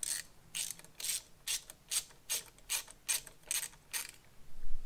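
Ratcheting driver clicking in short, quick strokes, about three clicks a second, as the screws of a motorcycle's handlebar control housing are backed out.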